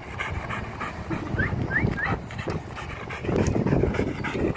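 A large brown dog panting hard with its tongue out, quick uneven breaths that grow louder about three seconds in. Three short high rising chirps sound about a second and a half in.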